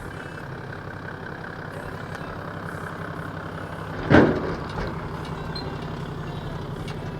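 An engine running steadily at idle, with one loud thump about four seconds in.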